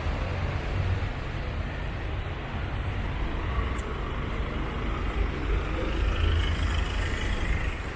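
City street traffic: vehicles running past, with a steady low rumble.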